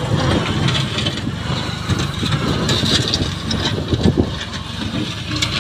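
Diesel engine of a Sonalika mini tractor with a front loader running as the tractor moves and pushes soil with its bucket, with a sharp knock about four seconds in.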